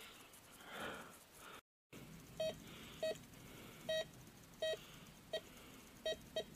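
Metal detector sounding a string of short, mid-pitched beeps as its coil is swept over the ground, about seven of them at uneven intervals, starting about two seconds in. Each beep is the detector signalling a metal target under the coil.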